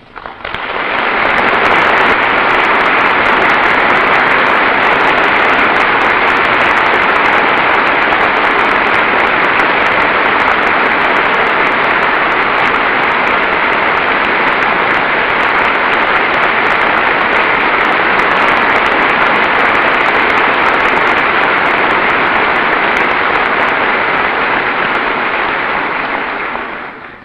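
Long, steady applause from a large audience of members of Congress, swelling up within the first second and dying away near the end.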